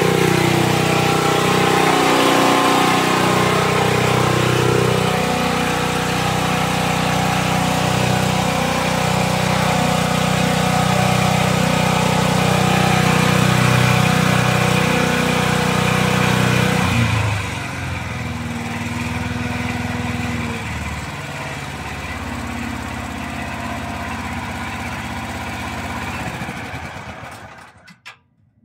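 Gasoline engine of a van-mounted DuroMax XP12000 generator running steadily. About two-thirds of the way through it drops to a lower, quieter speed. Near the end it is shut off and winds down.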